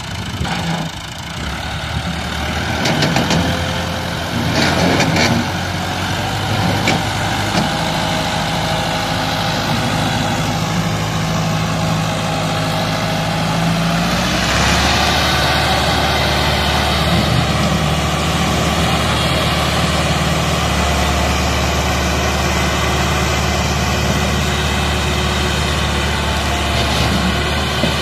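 Massey Ferguson 385 tractor's diesel engine working hard under load as it hauls a trolley full of soil up out of a pit. Some knocks sound in the first few seconds, and about halfway through the engine note changes and settles into a deeper, steady pull.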